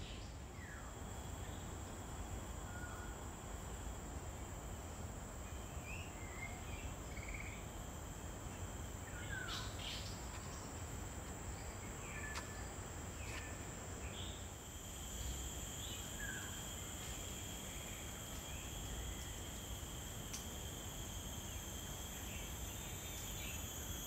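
Tropical forest ambience: a steady, high-pitched insect drone, with short bird chirps and calls scattered through it, over a low background rumble. A second, lower insect tone grows stronger about halfway through.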